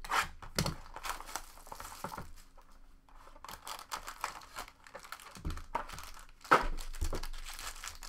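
Crinkling and tearing of a foil trading-card pack wrapper as hands open a card box and pull the pack out. The crackle comes irregularly, with a loud burst near the end.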